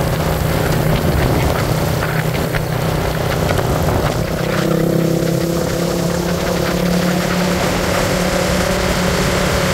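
Motor vehicle engine running at a steady pace, with a rushing wind noise over it.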